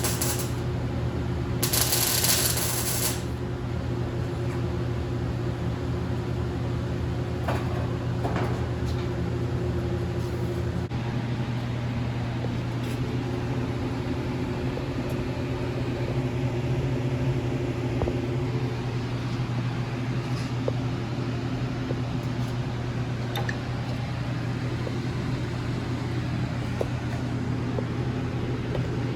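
A steady machine hum with a strong low tone, marked by two short bursts of high hiss in the first three seconds.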